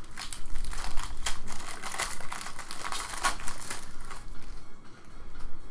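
Shiny plastic trading-card pack wrapper crinkling as it is pulled and torn open by hand: a run of irregular crackles that dies down about four and a half seconds in.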